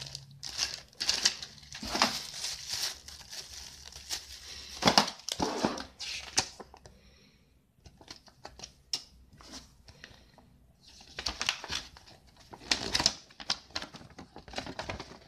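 Thin polyethylene bags and paper packaging crinkling and rustling in the hands in irregular bursts, with a near-quiet pause of a couple of seconds about halfway through.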